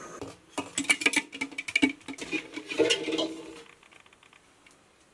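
Boiled eggs knocking and clinking against a stainless steel pot as they are moved into cold water: a quick, irregular run of knocks with a little metallic ring for about three seconds, then it goes quiet.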